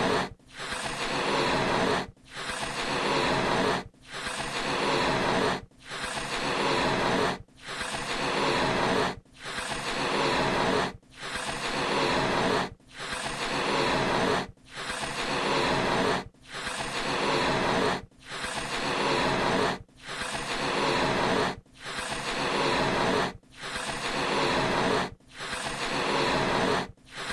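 A balloon being blown up in repeated puffs of air, about one every two seconds. Each puff is a rushing hiss that swells and then stops short.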